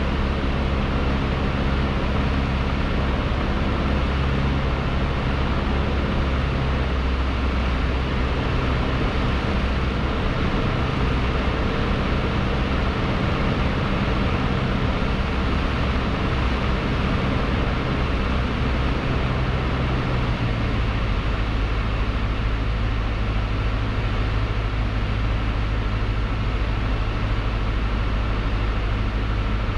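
Cessna 152's Lycoming O-235 four-cylinder engine and propeller running steadily in flight, heard inside the cockpit as a constant drone with hiss. The engine tone changes about two-thirds of the way through.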